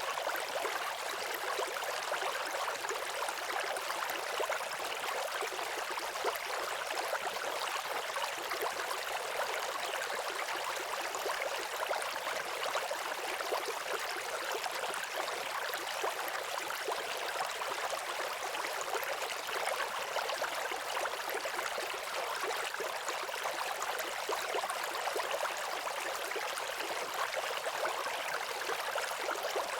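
Waterfall: falling water rushing steadily, an even hiss with little low rumble.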